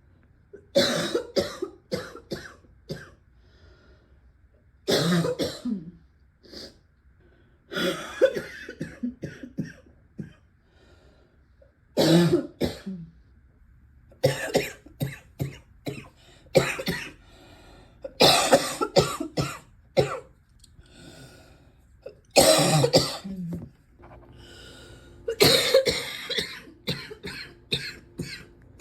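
A person coughing deeply in repeated fits, about eight bouts of several coughs each a few seconds apart, with faint breathing between the bouts.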